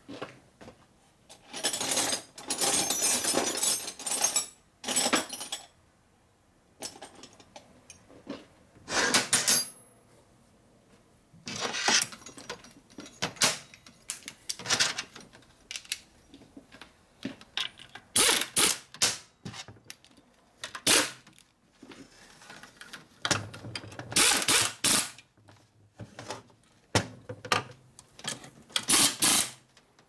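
Pneumatic air ratchet running in repeated short bursts of a second or two, with pauses between, driving in the bolts that join a motorcycle engine's crankcase halves.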